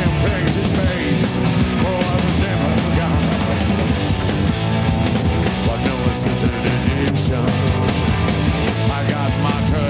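Live punk rock band playing: electric bass and a drum kit with crashing cymbals, and a man singing over them.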